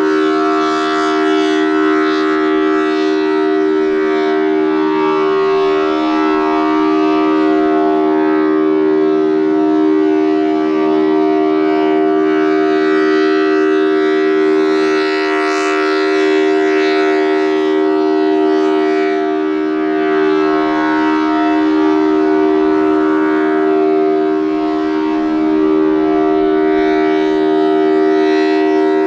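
Thunderbolt 1000T tornado siren sounding its full alert: its 4/5-port rotor holds a steady two-tone chord at constant pitch. The loudness swells and fades gently as the rotating horn turns.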